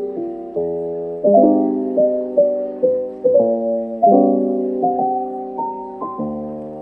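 Background piano music: chords struck every second or so and left to ring out, with a simple melody moving above them.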